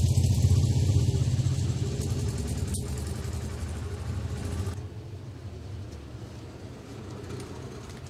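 Street traffic: a motor vehicle's engine runs close by with a deep rumble, loudest at first and then slowly fading as it moves away.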